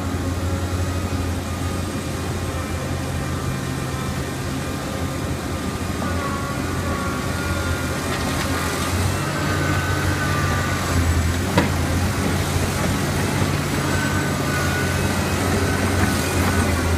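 Liebherr R 984 mining excavator's diesel engine running steadily as the excavator works, with a faint hydraulic whine. It grows louder about halfway through as the bucket dumps its load into a dump truck. One sharp knock a little later.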